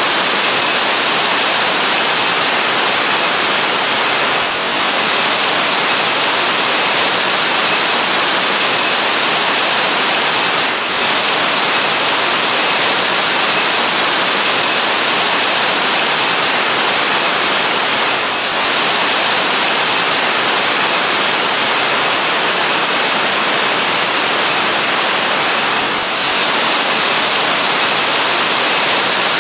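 Waterfall rushing: loud, steady roar of falling water, with slight brief dips in level every few seconds.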